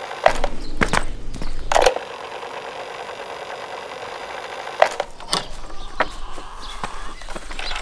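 Footsteps and a few scattered knocks and taps, loudest in the first two seconds, over a steady hiss.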